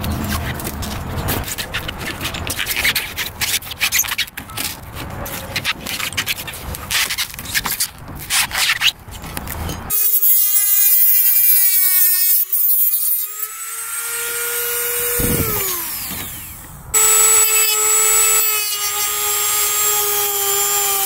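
A metal scraper grating and prying at the wet foam core under a Sunfish's fiberglass hull skin, then a corded Dremel rotary tool starts about halfway through with a high whine that wavers in pitch as it grinds into the core. The whine winds down briefly near the end and then runs again steadily.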